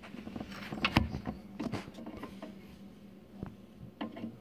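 Light clicks and taps of handling as a 12AX7 preamp tube is lined up over its socket: a scatter of small knocks, the sharpest about a second in, with another near the end.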